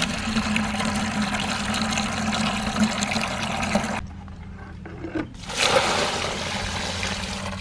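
Water pouring and splashing in two spells: a steady rush of about four seconds, a short pause, then a shorter second pour. A low steady hum runs underneath.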